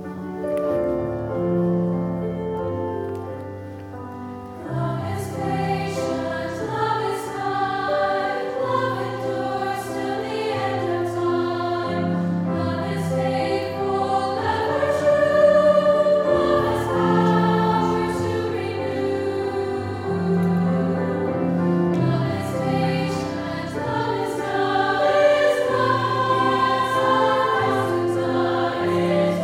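Choir singing a slow sacred piece with grand piano accompaniment. The piano plays alone at first, and the voices come in about five seconds in.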